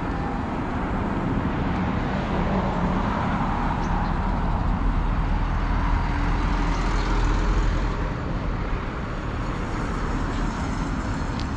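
City road traffic, with cars running along the street; it swells in the middle as a vehicle goes by, then eases off.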